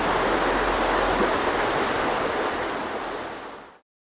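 Steady rush of flowing water, fading out from about three seconds in and cutting to silence.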